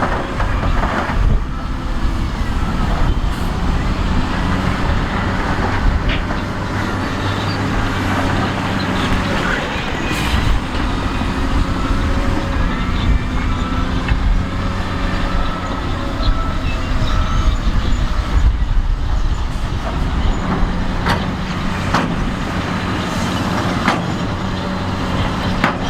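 Heavy diesel earthmoving machinery running under load, a steady low engine note with a rough clatter over it and a few sharp knocks.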